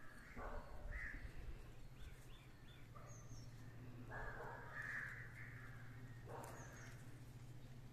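Faint bird calls: a few short, harsh calls, with a longer one about four seconds in, over a steady low hum.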